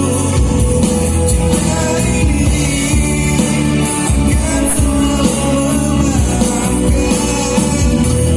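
A song with singing, played loud through a sound system during a sound check, with heavy bass.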